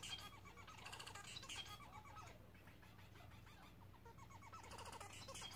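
Male society finch singing its courtship song, faint: quick runs of short, repeated chattering notes.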